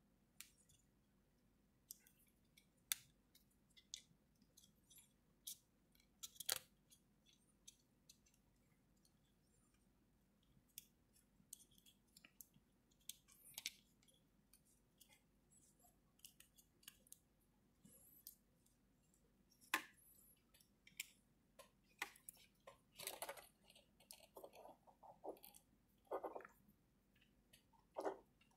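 Faint, scattered clicks and short rattles of 3D-printed plastic parts as a hand-held transformable robot figure is handled and its joints are moved, busier in the second half.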